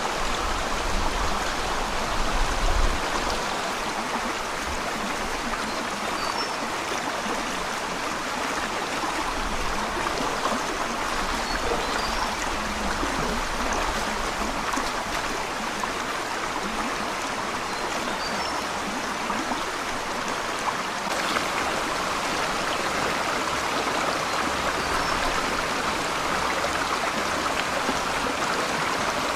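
Forest stream running over rocks: a steady babble of flowing water.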